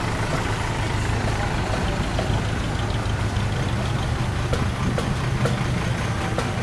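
Bus engine idling with a steady low drone, with a few short sharp ticks in the second half.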